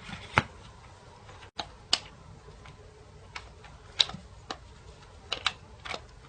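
Irregular sharp plastic clicks and taps from handling a Samsung USB charger as it is plugged in and out, about eight over several seconds, the loudest near the start.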